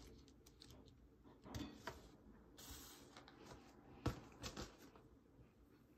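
Faint handling sounds: a small plastic bag of slime charms crinkling and being set down on a wooden table, with a few soft knocks and taps, the sharpest about four seconds in.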